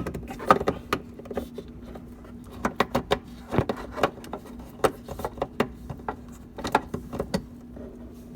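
Hard plastic parts of a vehicle's reverse-light assembly being handled and pushed into place by hand: irregular sharp clicks and knocks, over a steady low hum.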